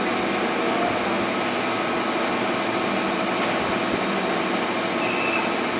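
Steady hum of a JR 205 series electric multiple unit standing at the platform, from its onboard auxiliary equipment and air conditioning. A short high tone sounds about five seconds in.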